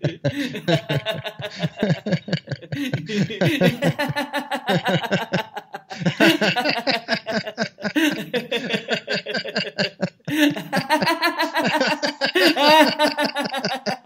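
Two men laughing deliberately in a laughter yoga 'gear shift' exercise, a fast run of 'ha-ha' pulses that steps up through the gears, louder and more enthusiastic with each; the laughs climb higher in pitch near the end.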